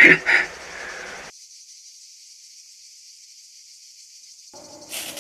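A steady high-pitched hiss with no low sound under it, after a man's voice finishes a word at the very start.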